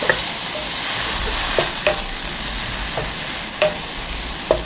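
Blanched lettuce stems and minced garlic sizzling in oil in a stainless steel pan over medium heat, with a spatula scraping and knocking against the pan about six times as they are stir-fried.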